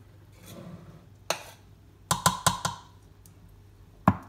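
A metal spoon knocking against cookware: one knock about a second in, a quick run of four ringing taps around two seconds in, and one more near the end.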